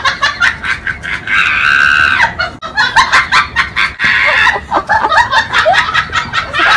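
Shrill, drawn-out screeching cry about a second in, then shorter high cries, over a run of rapid clicks.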